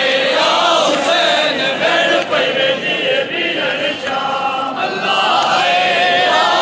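Large group of men chanting a noha, a Shia lament for Imam Hussain, together in unison without instruments.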